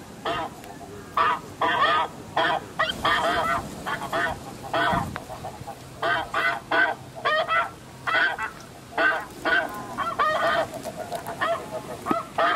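A flock of snow geese calling: many short, high calls, about two a second, overlapping throughout.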